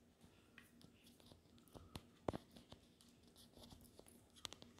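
Near silence with faint small clicks and ticks of fingers handling tiny screws and a circuit board in a plastic drone body. The clearest is a single click a little past two seconds in, with a short flurry of clicks near the end.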